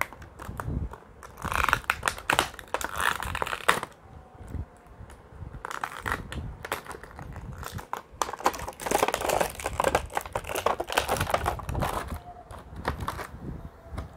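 Clear plastic action-figure packaging crinkling and crackling as fingers work a spare head out of the tray, in irregular bursts of small clicks and rustles.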